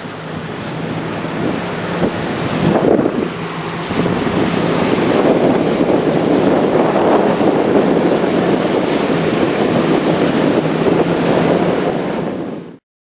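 Wind buffeting the microphone over rushing water and wake from a boat underway, with a faint steady low motorboat engine hum beneath; the sound cuts off suddenly near the end.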